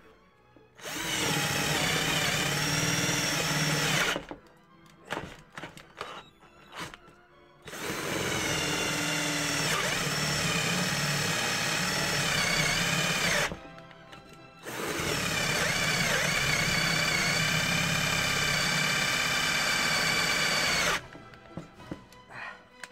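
Counterfeit Bosch GSR 18-2-LI Plus cordless drill in second gear boring a 15 mm drill bit into a wooden block: the motor and gearbox whine in three runs of a few seconds each, the pitch wavering as the bit loads up in the wood, and each run cuts off abruptly.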